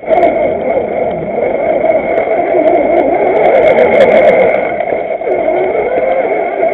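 A 1/6-scale RC Willys jeep's motor and gears running steadily with a constant whine as the truck crawls over rocky ground, heard from a camera mounted on the truck itself. A few light clicks come about four seconds in, and the pitch wavers near the end.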